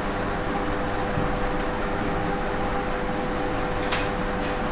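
Steady background hiss with a constant low hum, with a faint click about four seconds in.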